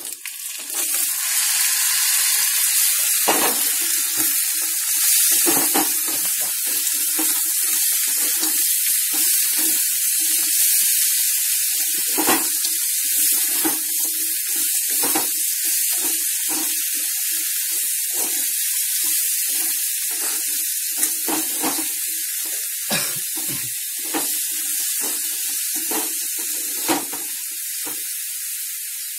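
Crab pieces hitting hot oil in a metal pan and sizzling loudly. The sizzle starts abruptly about a second in and slowly dies down, with a metal spoon scraping and clinking against the pan as the pieces are stirred.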